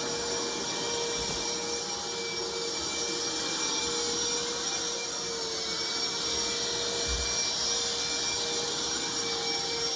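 Wet-dry vacuum (wet vac) running steadily: a constant motor whine over a steady hiss.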